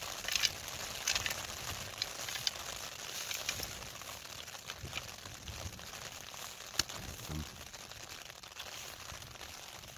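Handling noise of an Alpkit Brew Kit stove set: the neoprene pot cosy rustles, and the metal burner and pot give light clicks and knocks as they are turned over in the hands. A steady hiss lies underneath; one sharper click comes about seven seconds in.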